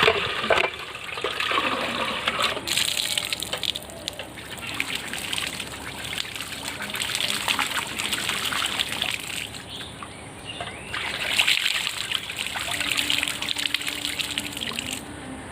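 Water trickling and splashing, unevenly and without a break.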